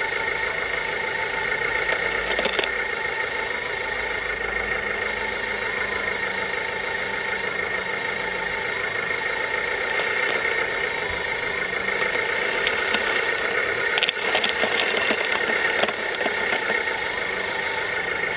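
Whine of 1/14-scale RC construction machines' electric motors and hydraulic pumps: a steady high-pitched whine with overtones, and a higher whine that cuts in and out several times. Scattered clicks and scrapes come from the tracks and blade working the sand.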